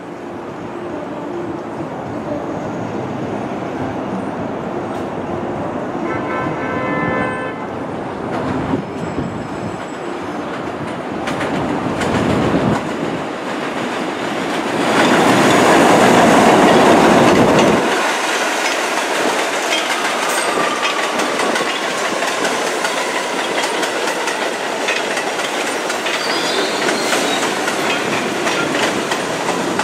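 Bombardier R62A subway train (1 train) approaching and running into the station on the elevated steel structure: rumble and wheel clatter on the rails building up. A short horn blast about six seconds in, and the loudest rush of noise about halfway through as the cars come alongside.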